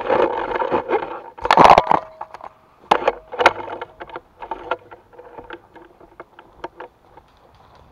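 Clothing and gear rustling and knocking against a body-worn camera as the wearer moves, loudest in one burst near two seconds in, followed by a string of short sharp clicks and taps that thin out.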